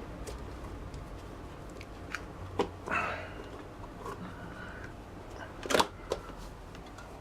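Scattered light clicks and knocks from handling a motorcycle inner tube and tyre on the wheel rim, with a brief scrape about three seconds in and the sharpest knock near the end.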